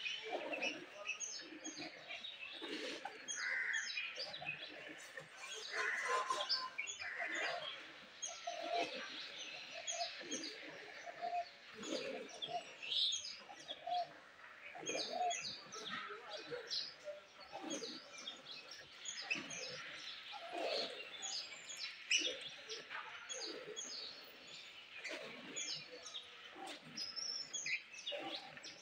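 Small birds chirping over and over, over the short squirts of milk from a cow's teats, milked by hand into a steel bucket.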